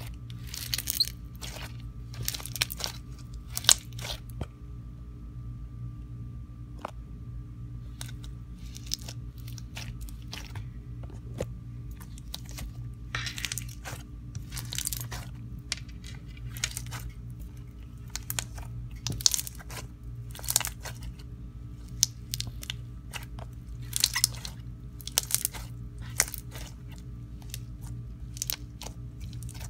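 Jelly cube slime being pressed, poked and squeezed by hand, its cut cubes giving irregular crunchy, crackly clicks and pops in clusters, with a quieter lull of a few seconds about four seconds in. A steady low hum runs underneath.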